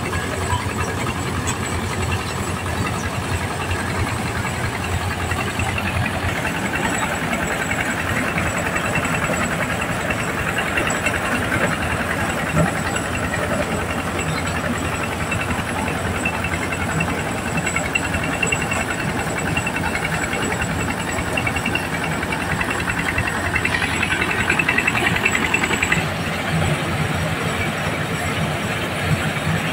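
Single-cylinder diesel engine running steadily, driving a corn sheller as whole cobs are fed into its drum, with the dense clatter of kernels being stripped and thrown out. The rattling grows louder for a couple of seconds about three-quarters of the way through.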